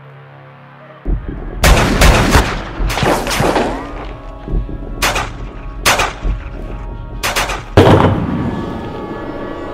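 Gunfire: about ten sharp handgun shots, starting about a second and a half in, some in quick pairs, spread over some six seconds, the last one the loudest.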